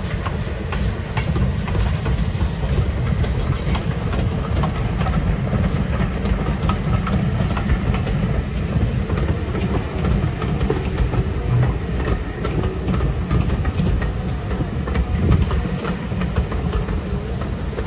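Steam train rolling past: GWR tank locomotive 4110 and its carriages go by. Their wheels click over the rail joints again and again above a steady low rumble.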